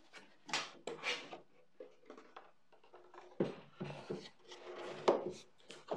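Wooden boards knocking and scraping as they are handled and fitted together by hand, with several short knocks.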